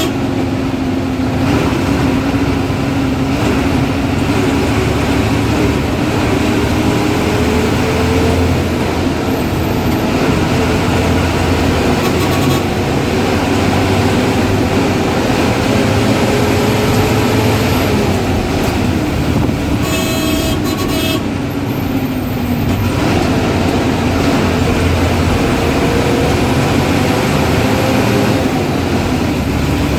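Ashok Leyland diesel bus engine running under load, its pitch slowly rising and falling with speed. A horn sounds briefly about twenty seconds in.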